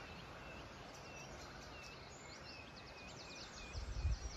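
A small bird singing faintly over quiet outdoor ambience: a series of short, high, repeated notes about twice a second, then a faster ticking trill in the second half. A brief low rumble of wind on the microphone comes near the end.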